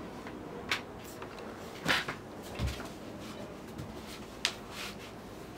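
A few scattered clicks and knocks, the loudest about two seconds in, with a low thump just after: a person moving about and sitting down at a table.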